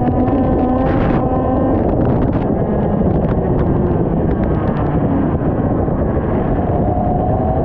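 IAME X30 125cc two-stroke kart engine running at speed, its pitch holding fairly steady, easing off a little past the middle and climbing again near the end.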